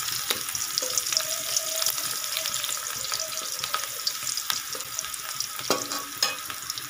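Chopped onions frying in hot oil in a metal kadai: a steady sizzling hiss with scattered crackles, as a spatula stirs them around the pan.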